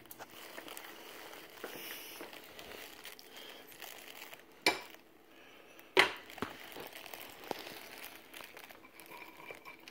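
Soft crinkling and rustling, as of something being handled, with two sharp clicks about a second and a half apart near the middle.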